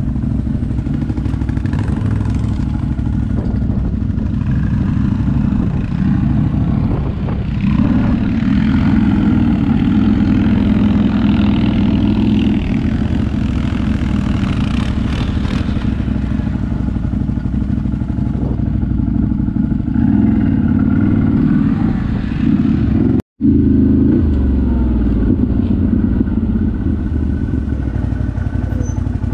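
ATV engine running as the quad is ridden, getting louder for a few seconds at a time from about eight seconds in and again around twenty seconds in.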